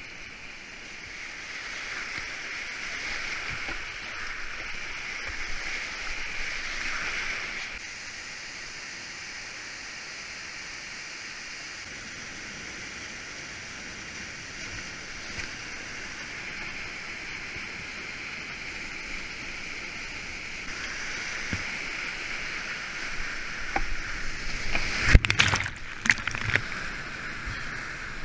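Whitewater creek rushing in a steady roar of fast water through steep rapids. A quick run of sharp splashes and knocks comes near the end, from the kayak and paddle hitting the water.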